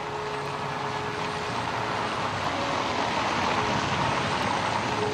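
A car driving up: a steady wash of engine and tyre noise that starts suddenly and swells slightly before easing near the end.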